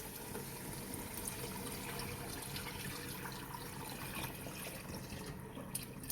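Beef stock (yakhni) being poured into a pot of beef trotters in fried masala: a steady liquid pour, with a few drips near the end.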